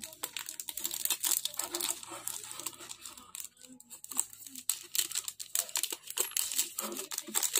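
Thin clear plastic bag crinkling and crackling as hands handle a card inside it, a dense run of irregular crackles.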